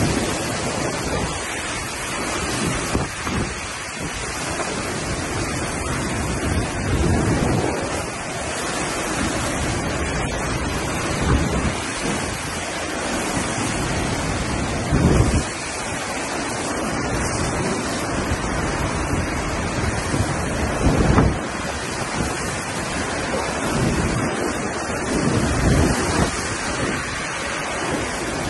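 Tornado-strength wind blowing hard and steadily, with gusts buffeting the microphone. The heaviest gusts come about halfway through and again about three-quarters of the way through.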